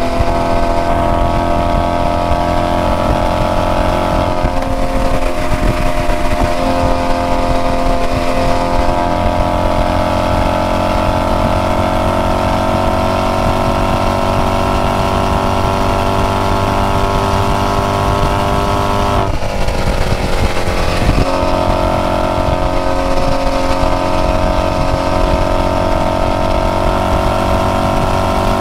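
Maserati Quattroporte Sport GTS's Ferrari-built 4.7-litre V8 accelerating, its note climbing slowly and steadily. About two-thirds of the way in the pitch drops sharply with a gearshift, then climbs again.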